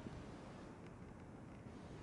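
Faint, steady background noise, mostly a low rumble, with no distinct sounds standing out.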